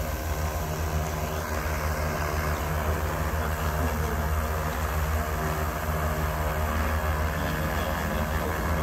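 Large X1400 industrial quadcopter drone hovering, its motors and propellers giving a steady buzzing hum with no change in pitch.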